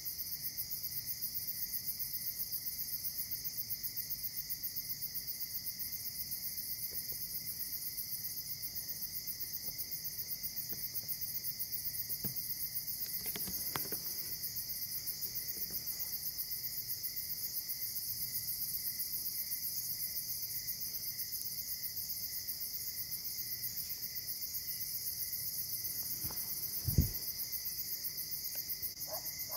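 Night-time chorus of crickets and other insects: a steady, high-pitched, rapidly pulsing trill. Near the end, a single brief low thump stands out.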